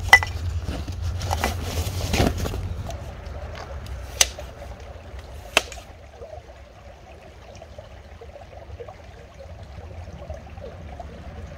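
Wind rumbling on the microphone with a few sharp clicks, then a faint steady trickle of water.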